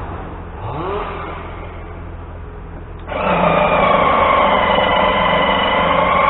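Background chainsaw noise with a brief rising rev, then about three seconds in a loud, steady, high-revving small machine cuts in suddenly and keeps running.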